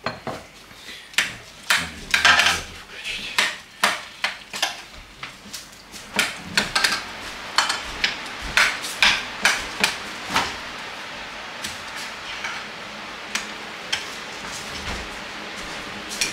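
Metal spoon clinking and scraping against a glass baking dish and ceramic plates as casserole is dished out: a quick run of sharp clinks that thins out after about ten seconds.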